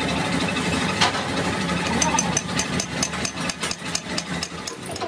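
Steady engine-like hum, with a fast, even run of sharp clicks, about five or six a second, starting about two seconds in.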